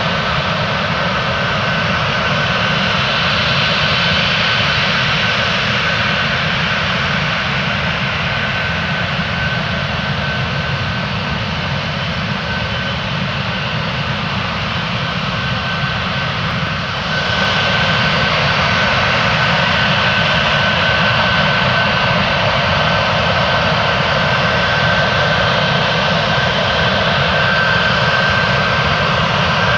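Antonov An-124's four D-18T turbofan engines running, a dense jet noise with a steady high whine; it grows louder a little past halfway.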